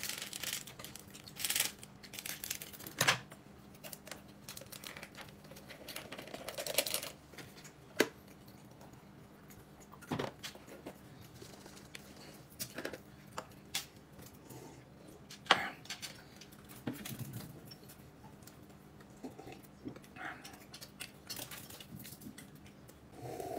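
Scattered light clicks and knocks of dishes and utensils at a meal, with a few short rustles.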